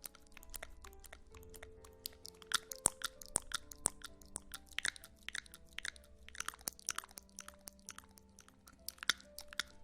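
Close-miked ASMR crackling: a dense run of crisp clicks and crunchy snaps, some trailing off with an echo, over soft held music tones.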